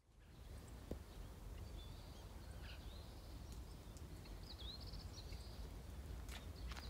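Outdoor countryside ambience fading in: a low steady rumble with a few brief bird chirps in the middle, and a couple of sharp clicks near the end.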